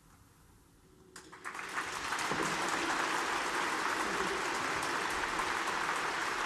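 Audience applause starting about a second in after a brief hush, building quickly to steady clapping.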